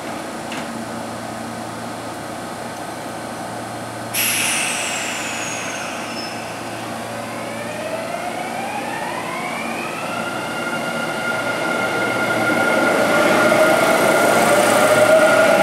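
Kintetsu electric commuter train standing and then pulling away: a steady hum, a sudden hiss of air about four seconds in as the brakes release, then the rising whine of the inverter motors as the train accelerates, levelling off and growing louder as the cars pass close by.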